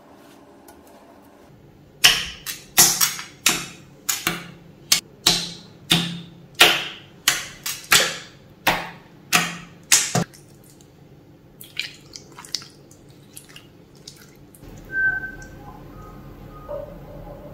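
Hands squishing and slapping a jiggly water slime made from Fevigum and water: about a dozen wet squelching smacks, roughly one and a half a second, starting about two seconds in. Softer sticky crackles follow. Near the end, air is blown through a straw into the slime, a faint low steady sound.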